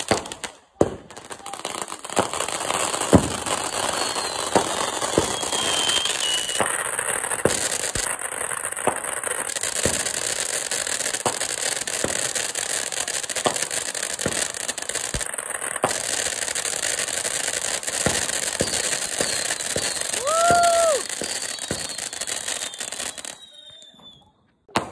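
Consumer firework fountains burning: a steady rushing hiss of spraying sparks, peppered with crackles and pops, with a couple of brief whistling tones. The fountain dies out near the end.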